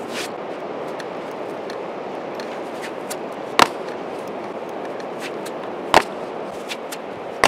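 Trainers landing on beach rocks in sharp slaps, two loud ones about three and a half and six seconds in and another near the end, with fainter ticks between, over a steady rushing background.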